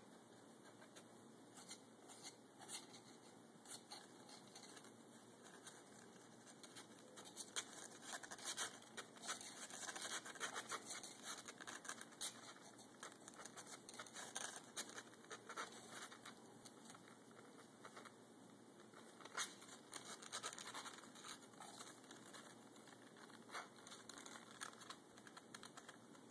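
Faint, irregular scratching and rustling of a kitten moving about in a cardboard box, busiest for several seconds in the middle.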